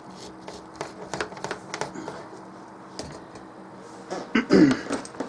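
Scattered light clicks and taps of small items being handled on a workbench, over a steady low hum. Near the end comes a short, louder vocal sound.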